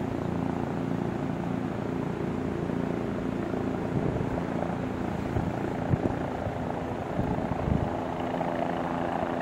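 A helicopter flying low on its approach to land, its rotor beating steadily, with a few brief low thumps midway.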